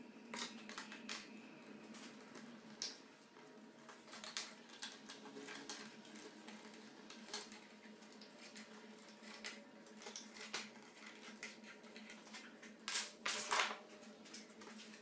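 Ash wood chair parts being handled and fitted together on a plywood workbench: irregular light wooden clicks and knocks as the slatted back and frame pieces are shifted, with a couple of louder knocks near the end. A faint steady hum runs underneath.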